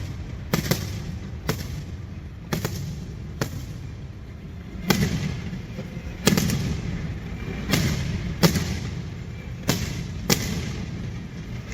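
Fireworks exploding: about ten sharp bangs at uneven intervals, each trailing off into a low rumble that carries on between them.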